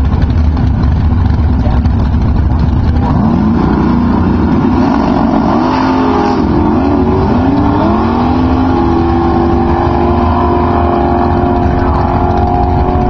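Two drag racing cars launching from the starting line and accelerating hard down the strip. Their engines rumble, then climb in pitch in several rising sweeps that restart with each gear change, and finally hold a high steady note as the cars pull away.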